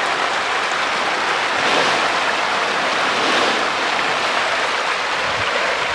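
A dense mass of farmed catfish splashing and thrashing at the pond surface as they feed, a steady wash of churning water.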